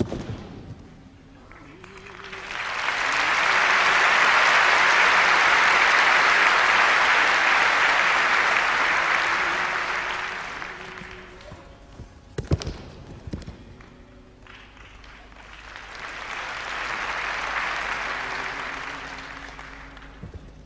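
Audience applauding: the applause swells up, holds for several seconds and dies away, then a second, quieter round rises and fades near the end. A sharp knock about twelve seconds in.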